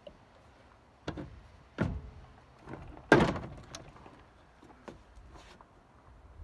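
A series of knocks and thuds, the loudest about three seconds in, as a Honda WH15X water pump is set down and shifted into place on its skid-mount base.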